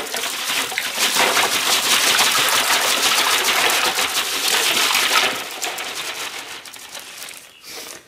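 A bag of ice cubes being emptied into a plastic cooler holding water: the cubes clatter and splash into the water amid the crinkle of the plastic bag. The sound is dense and loud for the first five seconds or so, then thins out and fades.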